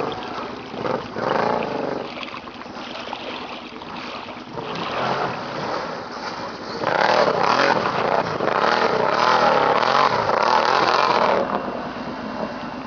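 ATV engines running and revving, the pitch rising and falling with the throttle, with a rushing noise on top; louder from about seven seconds in until about eleven seconds.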